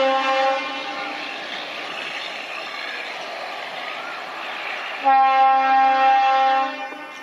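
Horn of an ICF self-propelled inspection railcar: one blast ends about half a second in, and a second, longer blast of nearly two seconds comes about five seconds in. Between the blasts the railcar is heard running on the track.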